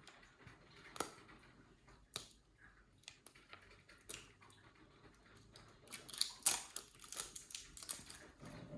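Plastic toy pieces and packaging being handled: scattered light clicks, then a denser spell of crinkling and clicking about six seconds in.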